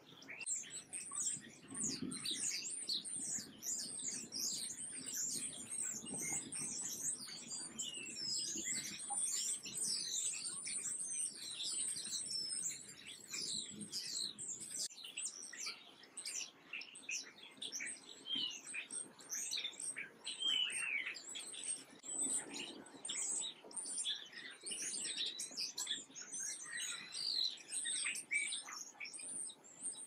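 A flock of house sparrows chirping without a break, many short, high chirps overlapping.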